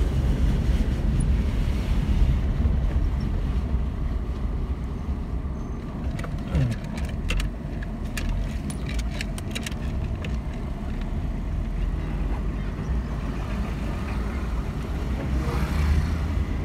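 Road and wind noise heard from inside a moving vehicle, a steady low rumble throughout. A run of sharp clicks comes near the middle.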